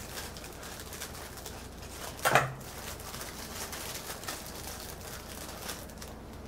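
Faint handling noise: a small plastic bag of spare drone propeller blades being turned over in the hands, with one short low sound about two seconds in.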